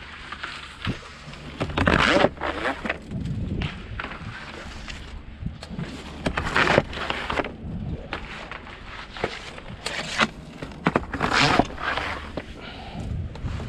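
Iseki PZ73 rice transplanter running: a steady low engine hum under irregular clattering and scraping from the machine, loudest about two, six and a half and eleven seconds in.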